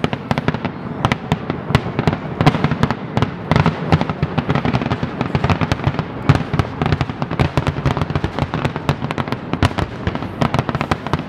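Aerial fireworks shells bursting in a dense, continuous barrage: many overlapping bangs each second, with no break.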